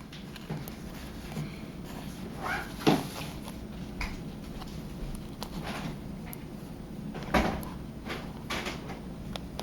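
Small handling clicks on the phone, with two sharper clicks about three and seven seconds in as an iPhone 6 Plus flex-cable connector is pressed onto its board socket and snaps into place.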